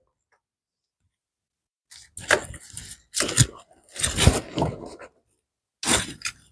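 Channel-lock pliers working a spring hose clamp onto a coolant hose: several short bursts of metal scraping and clicking, with rubber and glove rustle, starting about two seconds in.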